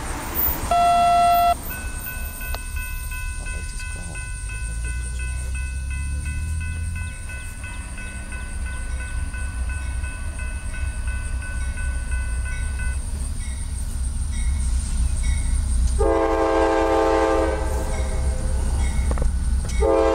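Approaching diesel freight train led by CSX locomotive 432, rumbling low, sounding its air horn: one blast of about a second and a half late on, and another starting just before the end.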